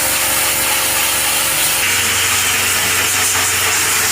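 Continuous harsh scrubbing of rust and grime off a washing-machine part softened with detergent, with a low hum that steps up about two seconds in.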